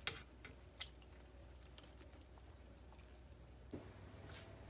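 Very quiet room tone with a low steady hum and a few faint soft clicks: one right at the start, one about a second in and a weaker one near the end.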